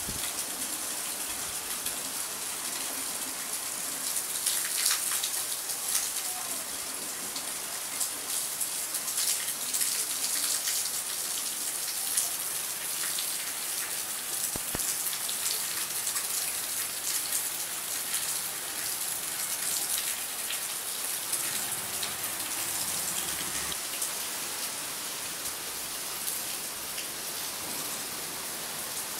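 Rain falling steadily, a continuous hiss with many individual drops striking close by; it swells louder a few times in the first half.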